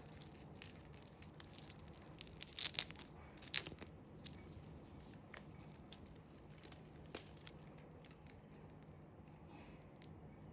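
Handling noises of a watch box and its packaging being opened: faint, scattered clicks and crinkles, most of them in the first four seconds, thinning out after.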